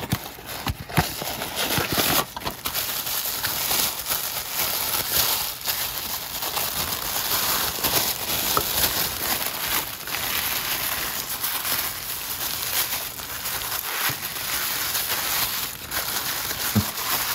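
Tissue paper being pulled apart and unwrapped by hand: steady rustling and crinkling with frequent sharp crackles.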